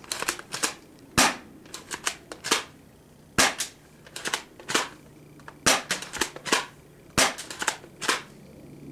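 Spring airsoft pump-action shotgun being fired repeatedly, a sharp shot about every two seconds, four in all, with quicker clicks and clacks of the pump being worked between shots.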